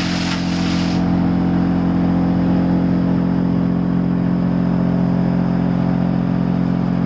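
Sawmill machinery, the chipper line with its vibrating conveyor, running: a steady, loud, deep machine hum with a strong low tone. A hiss is laid over it for about the first second.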